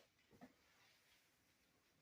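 Near silence: room tone, with a couple of faint short clicks about half a second in.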